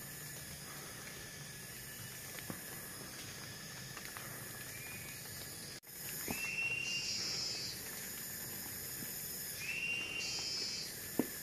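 Steady high-pitched drone of forest insects. About six seconds in the sound cuts and starts again. After that a louder insect buzz comes in twice, each time led by a short rising tone. A few faint clicks are scattered through, with one sharp click near the end.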